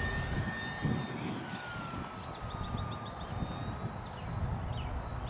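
Electric motor and propeller of an FMS P-40B RC warbird whining in flight on a 3S LiPo, its pitch sliding steadily down from about a second in as the plane flies past and away.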